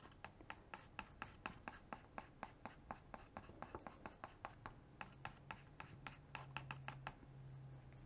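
Faint, quick taps and scrapes of a small metal palette knife dabbing thick acrylic paint onto paper, about five a second, stopping about seven seconds in.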